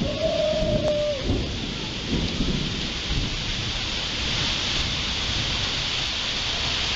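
Heavy rain falling steadily during a thunderstorm, with low rumbling thunder underneath. A short held tone sounds for about the first second and drops away at its end.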